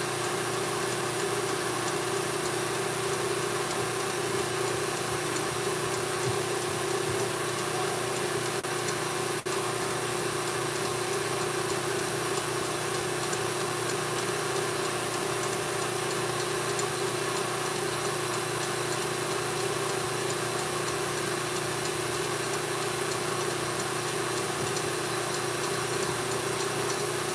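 KitchenAid stand mixer running at a steady speed, its motor humming as it whips egg whites for Italian meringue.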